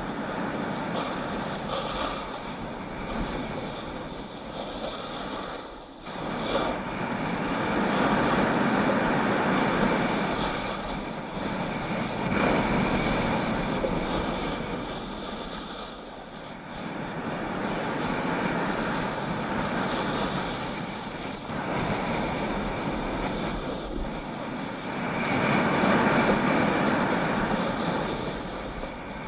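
Wind rushing over an action camera's microphone and the scrape of edges on packed, groomed snow during a fast run down a slope. The noise swells and fades every few seconds with the turns, dipping briefly twice.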